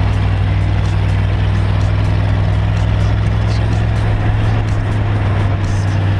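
A dune buggy's engine heard from on board while driving over sand: a loud, steady low drone at even revs, with a rushing noise on top.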